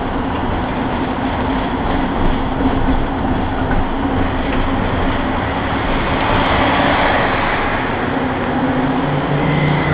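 Ganz ICS articulated tram running along the street, heard from on board: steady rolling noise of wheels on rails with a low motor hum, a brighter hiss swelling about six seconds in.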